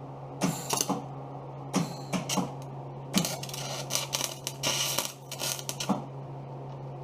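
Electric arc welding: the arc crackles and sputters in short bursts, one about half a second in, two more around two seconds, then a longer run of nearly three seconds, over a steady low hum.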